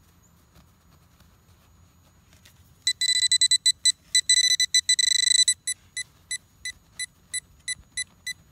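Deteknix handheld pinpointer beeping as its tip is pushed into the soil over a buried metal target. It starts about three seconds in with very fast, almost continuous beeps at one high pitch, then settles to steady beeps about three times a second.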